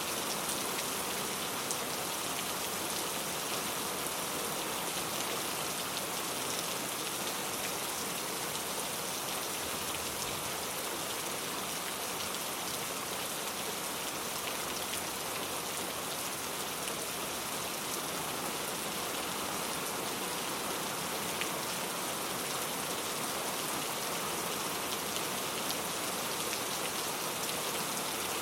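Heavy rain falling steadily, a dense even hiss of drops hitting a surface with many small individual drop ticks.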